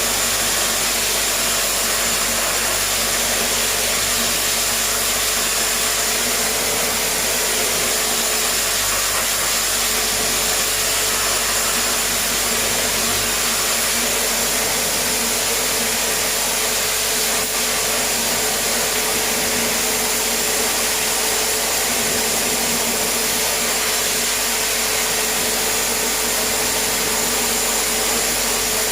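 Electric pressure washer running steadily as water is sprayed, a constant motor whine over a dense hiss.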